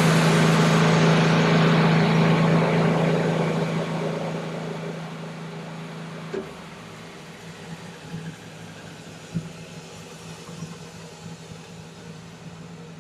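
Wood-Mizer LT15 Wide band sawmill running with a steady low hum and a loud hiss of sawing. The hiss fades away over the first five seconds or so, leaving the machine running steadily at a lower level, with a few light clicks.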